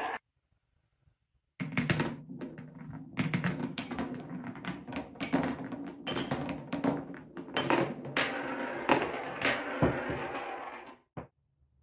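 A marble rolling along the carved grooves and through the tunnels of wooden Cuboro blocks. A steady rolling rumble is broken by many sharp clacks as the marble drops through holes and knocks against the wood. It starts after a moment of silence and stops with a last click near the end.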